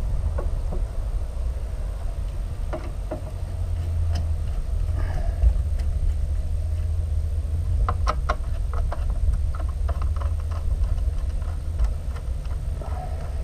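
Scattered clicks and light clatter of clamps and fittings being worked by hand while a top-mount intercooler is unbolted, with a cluster of several sharp clicks about eight seconds in, over a steady low rumble.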